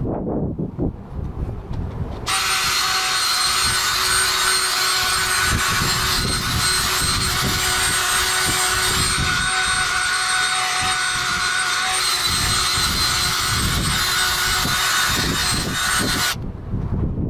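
Power drill spinning a wire brush against wet asphalt to scrub out an oil stain: a steady motor whine over a harsh scraping hiss. It starts about two seconds in and stops abruptly shortly before the end.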